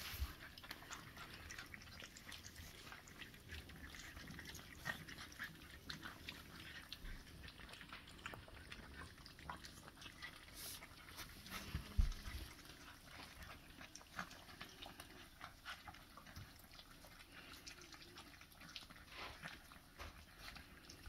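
Several puppies eating dry kibble from stainless steel bowls: a faint, irregular run of crunching and clicks from teeth and kibble against the metal bowls, with one dull thump about twelve seconds in.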